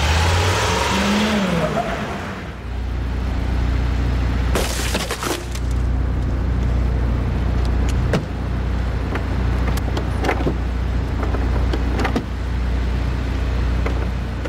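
Hummer pulling away from the crushed limousine, a rush of engine and tyre noise with a brief rising-and-falling squeal, dying down after about two and a half seconds. A steady low engine hum follows, with scattered clicks and knocks from the wrecked car.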